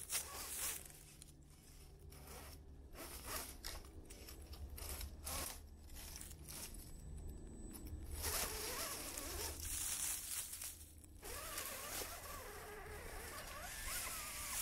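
Axial SCX10 III CJ7 1/10-scale electric RC crawler driving: the whine of its electric motor and geared drivetrain comes in stop-and-go bursts, rising and falling in pitch as the throttle is worked.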